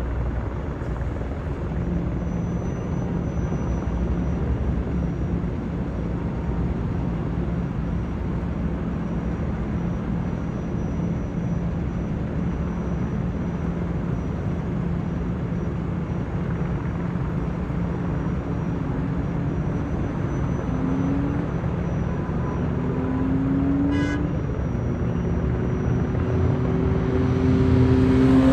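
Steady rumble of freeway traffic as a line of emergency vehicles drives past below, with a low steady hum. Near the end a few engine notes rise in pitch, and there is one short, sharp chirp.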